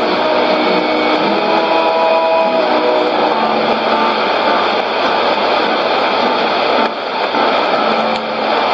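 Weak shortwave AM broadcast on 9560 kHz, received on a Sony ICF-2001D portable: faint music buried in heavy static and hiss, the music sinking into the noise after about three seconds. Two brief dips near the end are the signal fading.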